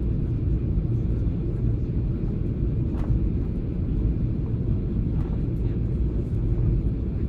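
Steady low rumble of engine and airflow noise in the cabin of a Boeing 737-800 on its landing approach, with a faint click about three seconds in.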